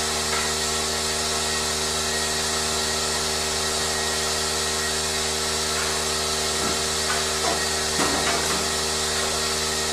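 A machine running steadily, a constant hum with a hiss over it, with a few faint knocks near the end.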